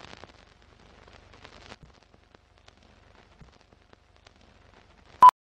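Film-countdown leader sound: scattered faint crackles and pops like old film running, then one short, sharp beep near the end.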